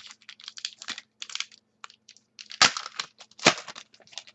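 Trading cards and foil pack wrappers being handled: a run of quick crinkles and rustles, with two louder scrapes about two and a half seconds in and again a second later.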